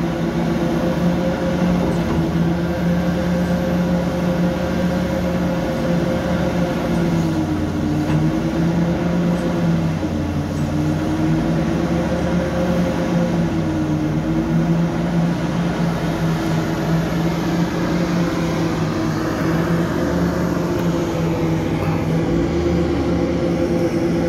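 Large mining excavator's diesel engine running steadily under load while digging, its drone sagging briefly in pitch a few times as the load comes on.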